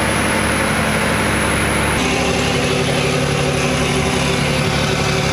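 Fishing trawler's inboard diesel engine running steadily, a loud low drone with a slight change in tone about two seconds in.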